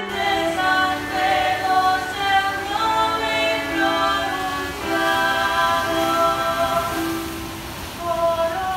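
Background music: a choir singing slow, held notes.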